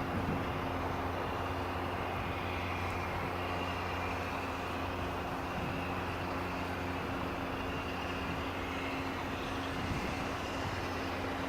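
Class 55 Deltic diesel locomotive's engines running with a steady drone and a constant high whine over it, not changing in pitch.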